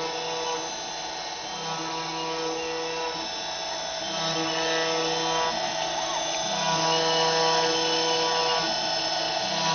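CNC machine running: a steady whine of many held tones, with the lower tones stepping to a new pitch every second or two as the axes move.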